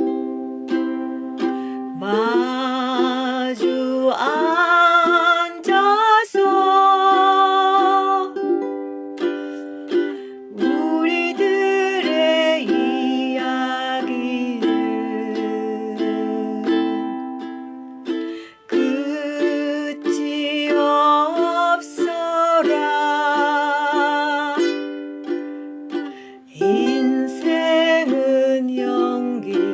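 Ukulele strumming chords in waltz time, with a vocal melody that wavers and glides over it in phrases of a few seconds.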